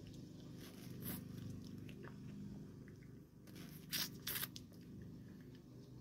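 Faint mouth sounds of someone biting and sucking on a frozen freezer pop in its plastic sleeve, with a couple of short crunches about four seconds in.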